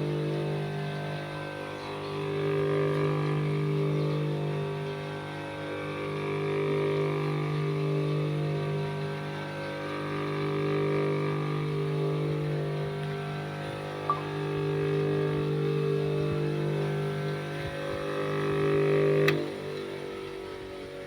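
Bosch GBG 60-30 bench grinder running with no load, giving a smooth, steady motor hum whose level swells and fades slowly. The hum stops suddenly with a click near the end.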